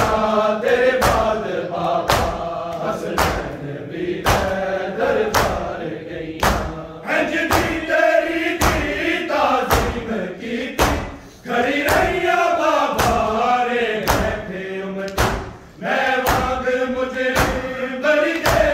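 Many men chanting a Punjabi noha (lament) together, with loud, even slaps of open hands striking bare chests in matam, nearly two slaps a second.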